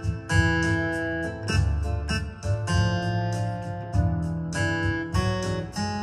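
Electronic arranger keyboard playing a bossa nova piece: a melody over auto-accompaniment with a moving bass line, chords and evenly repeating percussion hits.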